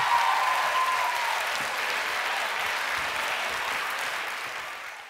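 Studio audience applauding, fading out near the end.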